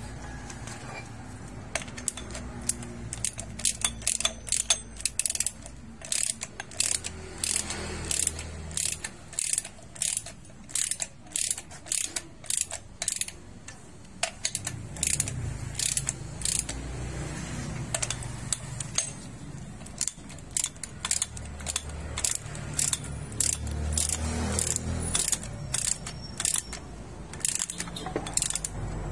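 Socket ratchet wrench clicking in quick runs, with short pauses, as the hex bolts on a steel coupling flange are run down, over a low background hum.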